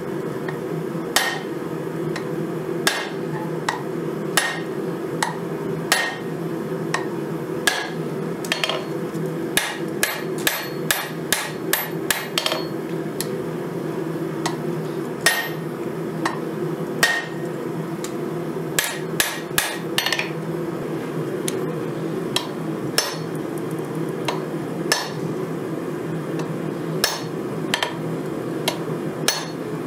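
Hammer blows forging a red-hot 5160 steel knife blank on a die, sharp strikes at uneven intervals with quick runs of several blows about ten seconds in and again around nineteen seconds in, over a steady low hum.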